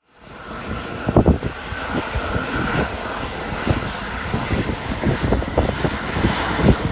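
Rolls-Royce Trent 1000 jet engines of an All Nippon Airways Boeing 787-9 running, a steady loud roar with a faint high whine over the first few seconds and uneven low rumbles.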